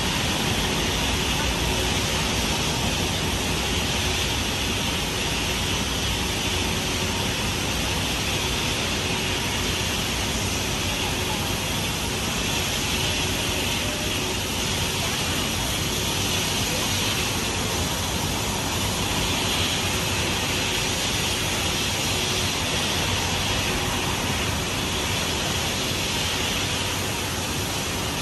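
Ship lift's drive machinery running steadily as it raises the water-filled trough: an even mechanical rushing noise with a faint steady hum.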